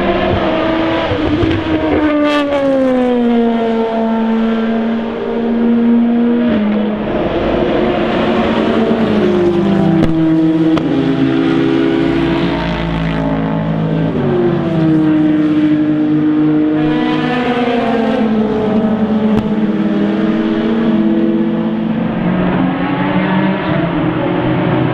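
Endurance race car engines passing one after another. Each engine note drops in steps as the car brakes and downshifts, then climbs again as it accelerates away, with the engines overlapping at times.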